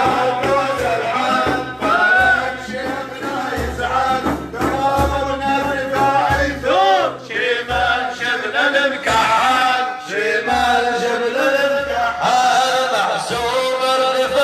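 Male voice singing an Arabic madih, a devotional praise song for the Prophet, in long ornamented lines that bend up and down, over repeated low drum beats.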